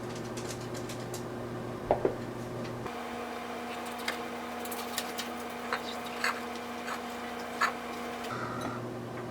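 Microwave oven running with a steady hum that changes to a higher hum about three seconds in and drops back near the end, with two sharp clicks about two seconds in and scattered small pops and ticks while it runs.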